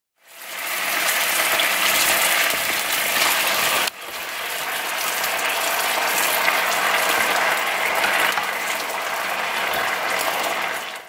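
Pieces of duck sizzling in a frying pan, a dense steady crackle, with a sharp break about four seconds in.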